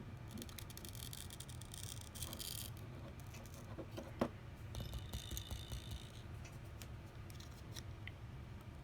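Light scraping and small clicks of a pry tool working under an iPhone SE battery that is still stuck on its adhesive, with one sharper click about four seconds in.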